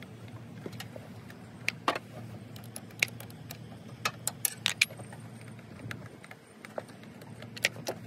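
Irregular metallic clicks and clinks of a wrench and battery terminal hardware being handled at a car battery, over a steady low hum.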